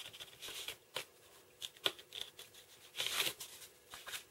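Foam sheet being cut with a hobby knife and pieces pulled free by hand: three stretches of scratchy, crackling scraping with a few sharp clicks between them.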